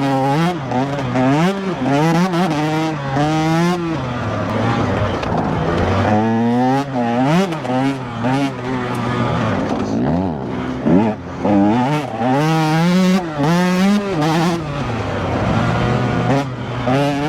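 Two-stroke dirt bike engine being ridden hard, revving up and dropping again and again as the rider opens the throttle and shifts, with a couple of short off-throttle lulls.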